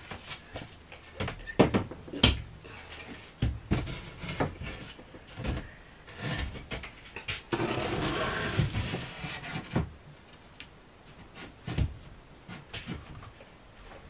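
Plywood shelf being handled and fitted onto a wooden fridge box: a series of wooden knocks and bumps, loudest early on, with a stretch of wood scraping as it slides into place midway.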